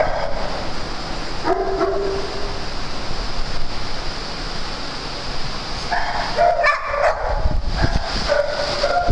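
Dogs barking, a few separate barks over steady background noise, with a low rumble near the end.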